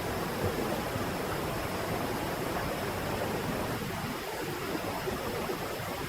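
Waterfall pouring off a cliff: a steady rush of falling water.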